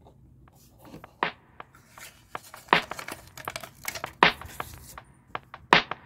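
Plastic packaging of a set of sticky balls being handled and opened, crinkling and tearing, with four sharper snaps about a second and a half apart.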